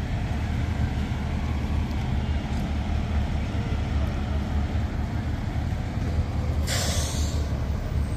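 Idling emergency vehicles' engines as a steady low rumble, with a short burst of air-brake hiss about seven seconds in.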